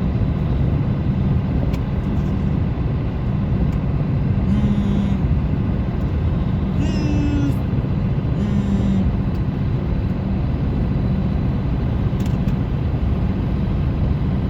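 Steady road noise of a car driving at highway speed on a wet road, heard from inside the car. Three brief pitched sounds break in near the middle.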